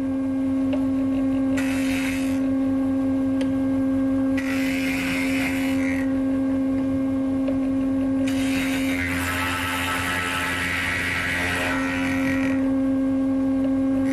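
Slot mortiser on a Multico universal woodworker running with a steady whine. Its rotating bit cuts into the timber three times, each cut adding a rasping hiss over the whine; the third cut is the longest.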